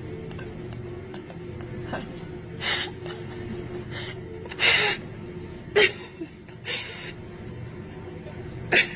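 A person's stifled, breathy laughter in about five short bursts, the loudest about halfway through, over steady background music.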